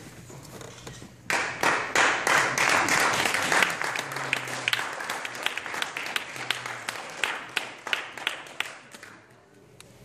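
Audience applauding, starting suddenly about a second in, then thinning to scattered claps and dying away near the end.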